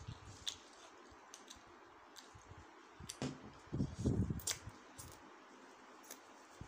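Someone eating Samyang carbonara instant noodles with wooden chopsticks: scattered light clicks of the chopsticks and noodles, then a louder bout of slurping and chewing about three to four and a half seconds in.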